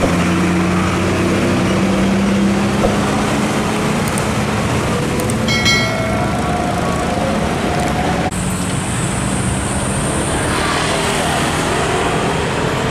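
Diesel container tractor-trailers driving past on a road, their engines running under the general traffic noise, with a brief high-pitched tone about halfway through. The sound changes abruptly a little past the middle.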